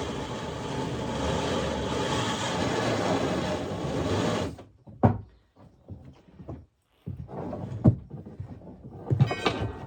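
Sawmill carriage feed works running with a steady mechanical rumble, which stops suddenly about four and a half seconds in. A few sharp metallic knocks follow, with a brief ringing tone near the end.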